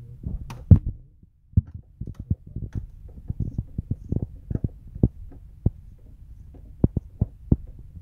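Freezer compartment of a no-frost fridge: a low steady hum with irregular sharp clicks and knocks, about two or three a second, dropping out briefly about a second in. The owner puts the noise down to ice built up around the freezer fan, which is not working properly.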